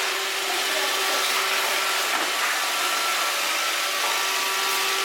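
Robot vacuum cleaner running: a steady noise with a couple of faint steady tones through it.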